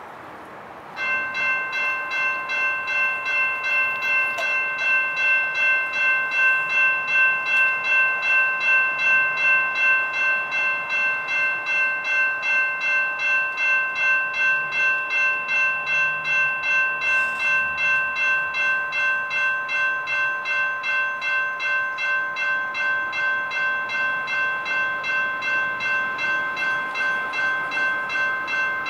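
Railroad crossing warning bell starting up about a second in and ringing steadily in an even rhythm of about two strikes a second. This is the crossing signal activating for an approaching train.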